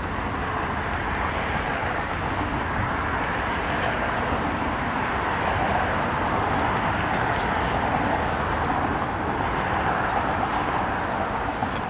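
Amtrak Superliner passenger cars rolling along the rails as the train departs: a steady rumble and hiss of steel wheels on track, with a few sharp clicks scattered through.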